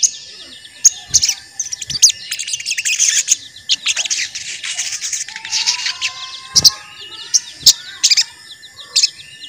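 A sogon bird singing busily: rapid, high-pitched chirps and trills in quick runs, with sharp snapping notes now and then. It is the sogon's 'cuit cuit' song, the kind used as a lure call to set other sogons singing and get them worked up.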